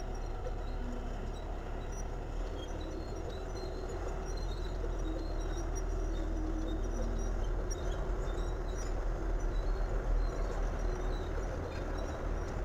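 Steady low diesel rumble of railroad derailment-recovery equipment and rail cars, swelling a little louder partway through, with faint scattered high-pitched squeaks.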